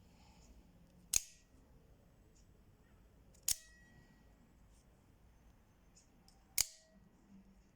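Out-the-front automatic knife, a Benchmade Infidel 3300 clone, snapping its blade out or back: three sharp metallic snaps a couple of seconds apart, each with a short ring.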